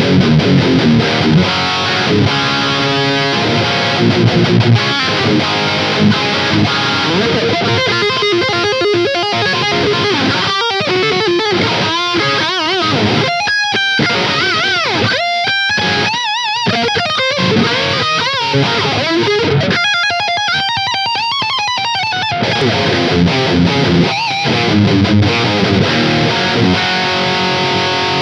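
Electric guitar played through a Soldano SLO (Super Lead Overdrive) pedal, boosted by an overdrive pedal in front of it, with a high-gain distorted tone: chugging chord riffs at first, a single-note lead line with bends and vibrato through the middle, and chords again near the end.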